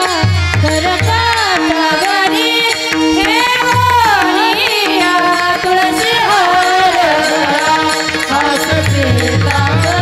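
Marathi kirtan devotional music: voices singing a gliding melody over a held harmonium tone. Pakhawaj drum strokes come in near the start and again near the end, and small brass hand cymbals (taal) keep the beat.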